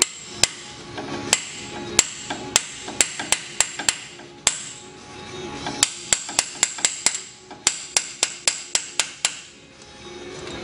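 A hammer striking an installer tool to drive a sintered PTFE bushing into a Toyota 8-inch reverse clamshell differential housing. Sharp metallic taps, about three or four a second, come in two runs with a short pause around the middle.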